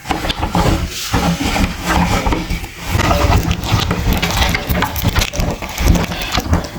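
Electric meat grinder running under load, its motor giving a steady low hum under a rough, continuous grinding crackle as material is forced through.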